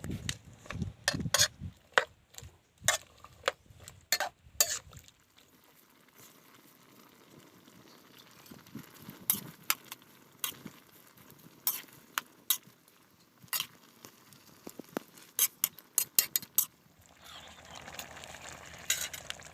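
A cooking utensil stirring food in a pot, with many sharp clinks against the pot at irregular intervals. A soft, steady hiss of cooking comes up near the end.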